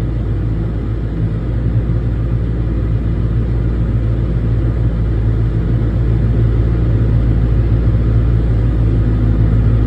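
Excavator's diesel engine running steadily under hydraulic load as its screening bucket is filled with fill sand, a little louder toward the end.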